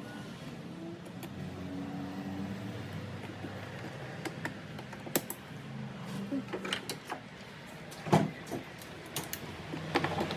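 Scattered sharp clicks and knocks of hand tools and parts being handled in a car's engine bay, the loudest knock about eight seconds in, over a steady low hum.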